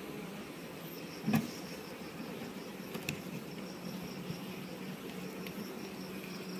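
A dense honey bee (Apis mellifera) colony humming steadily on the frames of an open hive, a low even buzz. A sharp knock about a second in, and a fainter click a couple of seconds later.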